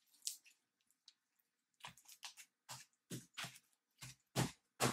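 Green dry diaper slime, a dry foamy texture, being squeezed and pressed by hand against a tabletop: a series of short squishes, one near the start, then, after a pause of about a second and a half, about ten more in quick succession.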